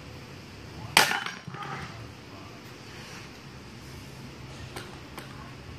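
A baseball bat hits a ball off a batting tee with one sharp crack and a short ring about a second in, followed by a weaker knock. Two faint clicks come near the end.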